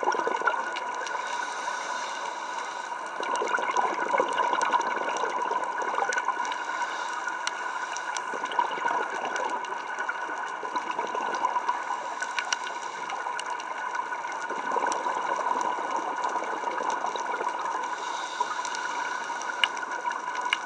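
Underwater ambience picked up by a camera in a waterproof housing: a steady watery hiss with a few constant high tones and scattered faint clicks and crackles.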